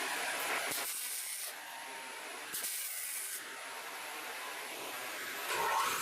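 Welding a grade 8 steel nut onto a caster bracket: bursts of hissing, crackling arc that start and stop twice, over a steady background hiss.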